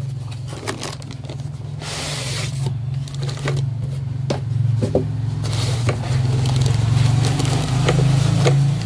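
Cardboard and foam packing scraping and plastic wrap crinkling as a small audio mixer, held in foam end blocks, is slid out of its box, with scattered clicks and knocks. A steady low hum runs underneath.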